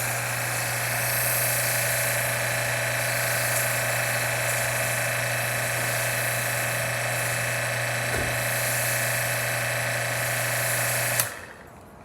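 AR630 electric pressure washer running steadily while spraying, a loud electric motor-and-pump hum with hissing water spray. It cuts off suddenly near the end.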